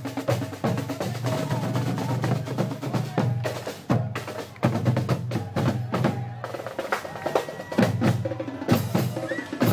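Marching band drum line, bass drums and snare drums, playing a continuous cadence of dense strokes.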